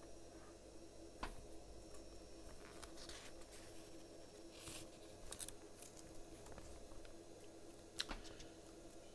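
Paper pages of a thin comic booklet being handled and turned: faint rustles and crackles, with short crisp ticks about a second in, around three and five seconds in, and a sharper one near the end. A faint steady hum runs underneath.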